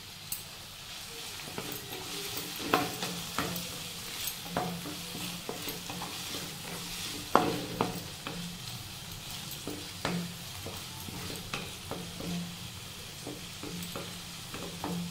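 Chopped potato and tomato sizzling in hot oil in a non-stick wok while a wooden spatula stirs and scrapes them, with irregular knocks of the spatula against the pan, the loudest about halfway through.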